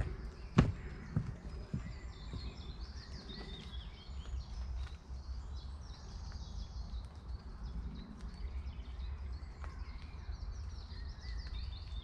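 Footsteps on a paved woodland path, a few clear steps about every half second that fade as the walker moves away over the first couple of seconds. Then small birds chirping and singing over a steady low rumble.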